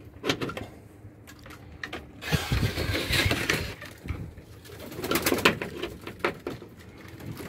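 Domestic pigeons cooing inside a wooden loft, with metallic clicks from a padlock and door latch being handled. There is a louder rustling burst about two and a half seconds in.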